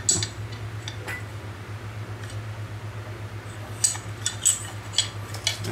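Small steel hammer heads clinking as they are handled: a few sharp, light metallic taps, one at the start and about a second in, then several more in the last two seconds.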